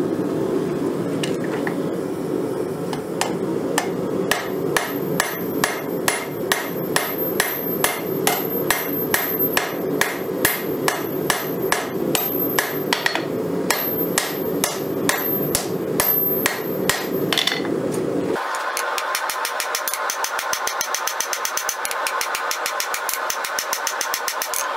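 Hand hammer forging a red-hot Damascus steel dagger blade on an anvil: a steady run of ringing blows, about two or three a second, over a low steady rumble. Near the end the sound changes suddenly to a higher hum with faster, lighter taps.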